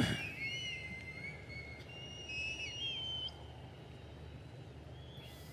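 Several people in a large audience whistling, shrill overlapping whistles gliding up and down for about three seconds and then stopping, over a low steady hum. A single thump comes at the very start.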